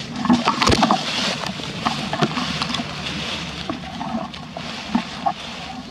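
Rustling and crackling of someone walking through dry fallen leaves and pushing through brush, with twigs and branches brushing past; the crackling is loudest in the first second.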